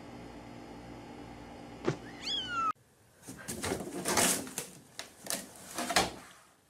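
A cat meows once, a short call falling in pitch, about two seconds in. Then comes a run of bumps and knocks as a cat scrambles into a laundry hamper, with the loudest knocks in the middle and near the end.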